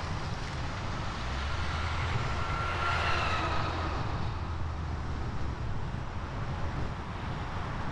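Steady road and tyre noise from a moving car, with a heavy truck passing in the oncoming lane: its rumble and whine grow louder to a peak about three seconds in, the whine dipping a little in pitch as it goes by, then fade.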